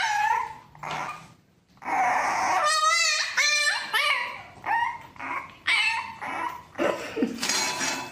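French bulldog puppy whining and yipping in a run of short, high-pitched cries, with one wavering, warbling whine about three seconds in.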